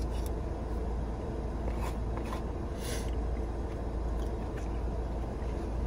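A person chewing a mouthful of food, with a few soft mouth clicks and smacks, over a steady low hum in a car cabin.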